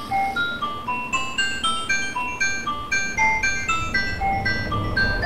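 Background music: a chiming melody of quick single notes, about four a second, with a low accompaniment joining about four seconds in.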